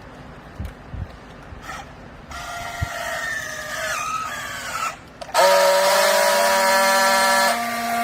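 Hydraulic baler's pump and motor running: a few low knocks, then a whine whose pitch sags as it takes load, a short break, and a louder steady whine that drops back and cuts off at the end.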